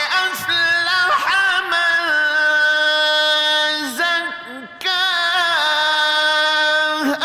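Man reciting the Quran in the melodic mujawwad style, holding long ornamented notes with slow pitch bends. He breaks off briefly about four seconds in, then resumes on another long held note.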